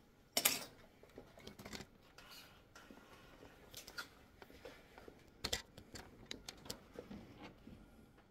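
Scattered light clicks, taps and knocks of hands handling parts on a tanning bed canopy. The sharpest knock comes about half a second in and another about five and a half seconds in.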